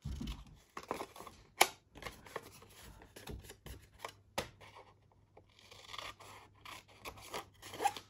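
Scissors snipping through soft printed paper in a series of short cuts, the sharpest about one and a half seconds in, while the sheet rustles as it is turned. These are the slits cut along the scored lines to form a paper box.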